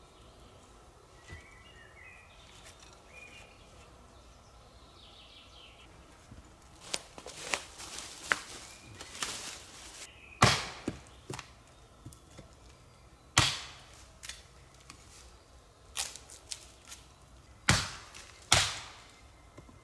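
Footsteps rustling through dry fallen leaves, then a series of sharp chops into wood with a hand tool: about five loud strikes, a few seconds apart, in the second half.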